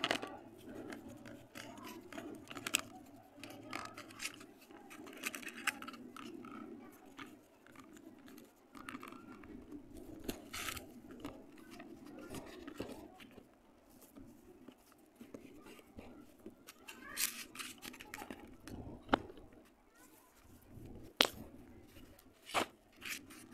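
Hands pressing and smoothing wet red clay in a steel dish: soft sticky squelching and scraping, broken by irregular sharp clicks as fingers and clay hit the metal. Some of the clicks are louder.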